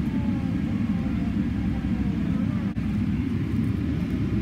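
Steady low rumble inside the cabin of a Boeing 777-300ER taxiing on the ground, the engines and airframe heard through the fuselage, with a few faint falling whines over it in the first couple of seconds.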